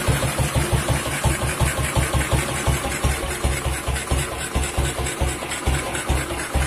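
Classic BSA single-cylinder four-stroke motorcycle engine idling with an even, slow beat of about five or six exhaust thumps a second.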